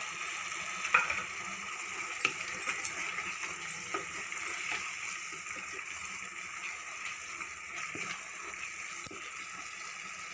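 Wooden spatula stirring boiled chana dal into bottle gourd curry in a pot, with light scrapes and clicks against the pot and a sharp click about a second in, over a steady sizzling hiss from the cooking curry.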